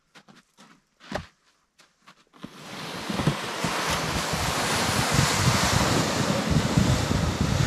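A white plastic sled loaded with split firewood being dragged over snow: a steady, loud scraping hiss that starts about two and a half seconds in, after a few light knocks of wood.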